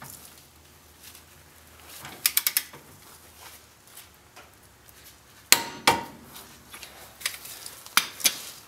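Ratchet wrench with a 28 mm socket clicking in a short burst of quick ticks as the lower ball joint nut on a Dana axle steering knuckle is tightened. A sharp metallic clank that rings briefly comes about five and a half seconds in, with a few lighter clinks after it.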